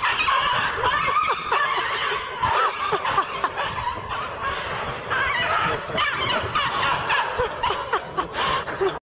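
People laughing and giggling.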